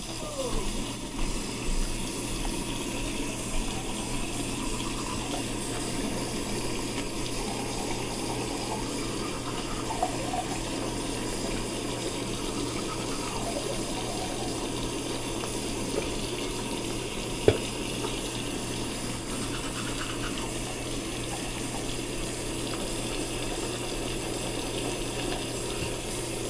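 Water running steadily in a bathroom, with a steady low hum beneath it and one sharp click about two-thirds of the way through.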